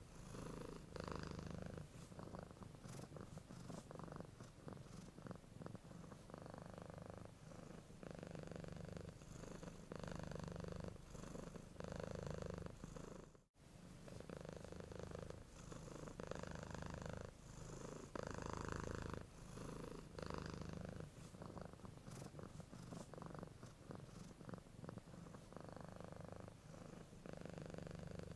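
Domestic cat purring, a low rumble that swells and fades with each breath in and out, in even cycles of about a second and a half. It cuts out for a split second about halfway through.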